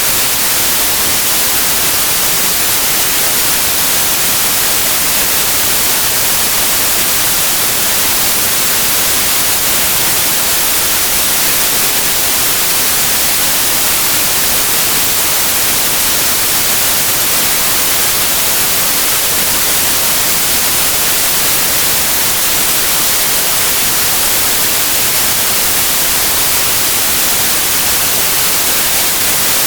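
Synthetic white noise: a steady, loud, unchanging hiss with no tones or rhythm.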